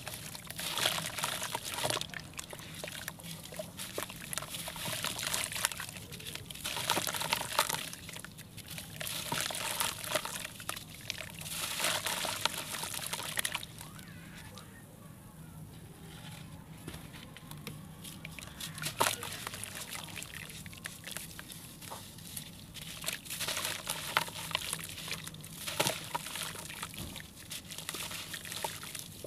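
Water-soaked sand-cement chunks being squeezed and crumbled by hand into water: gritty crunching and crackling with sloshing and dripping, in irregular bursts with a quieter stretch about halfway through.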